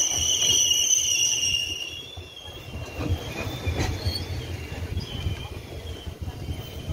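GO Transit bilevel passenger coaches rolling past, their wheels rumbling steadily on the rails. A high two-pitched wheel squeal is heard at first and fades out about two seconds in. A single sharp click comes about four seconds in.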